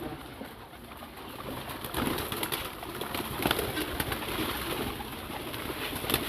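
Domestic pigeons cooing, with scattered short sharp clicks and a louder, busier stretch from about two seconds in.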